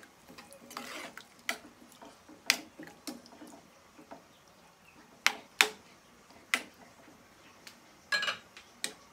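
A spatula knocking and scraping against a non-stick frying pan while stirring meat in a watery tomato sauce, with about ten irregular sharp clacks.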